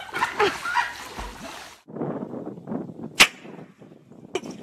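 Water splashing as dogs swim in a pool. Then a low rushing noise and a single sharp crack or knock, the loudest sound, about three seconds in.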